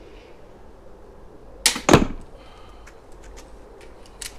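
Pistol crossbow firing: a loud snap of the string release about a second and a half in, then a second loud crack a split second later as the bolt strikes the target. A series of light clicks follows as the crossbow is handled and recocked.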